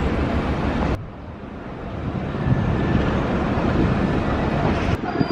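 City street traffic noise, a steady rumble with some wind on the microphone; it cuts off abruptly about a second in, drops lower, then builds back up.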